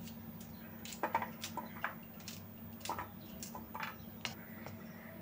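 Kitchen knife slicing okra pods on a plate: a string of irregular light clicks and taps as the blade cuts through each pod and meets the plate, over a faint steady hum.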